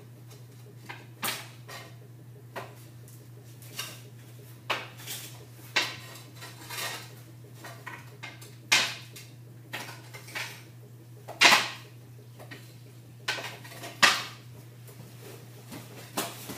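Irregular sharp clacks and clatters of a hockey stick, balls and pucks striking the concrete garage floor and the metal net, about fifteen knocks with the loudest near the middle and again a few seconds later, over a steady low hum.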